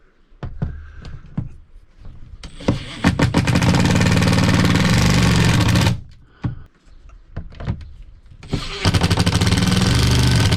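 Cordless impact driver hammering on the rooftop air conditioner's mounting bolts: a few short trigger blips, then two long runs of rapid hammering, about three and two seconds long, as the bolts are tightened down to secure the unit.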